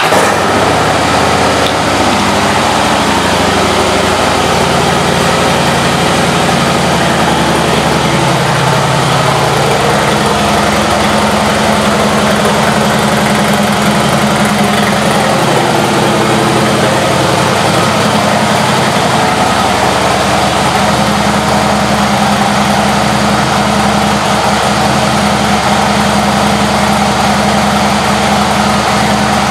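Harley-Davidson Fat Boy Lo's V-twin engine idling through a Vance & Hines aftermarket exhaust just after start-up. The low end shifts for the first several seconds, then settles into a steady idle.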